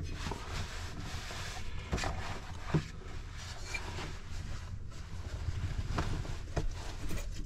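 Several light knocks and clinks as a terracotta flower pot and its wire hanger are handled and set about, over a steady low rumble.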